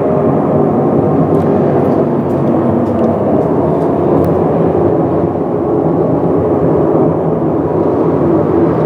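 A loud, steady, deep rumbling drone with faint held tones running through it. It is presented as the mysterious hum heard from the sky, a sound also described as thunder without a storm.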